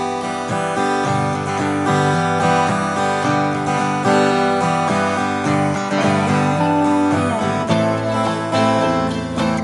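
Recorded music led by acoustic guitar.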